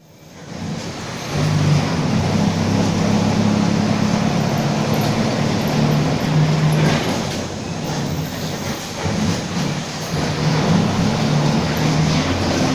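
Mercedes-Benz OF-1722M city bus running on the road, with a growling differential ("diferencial roncando"): a low drone with steady tones that come and go as the bus pulls and eases off. It fades in over the first second or so.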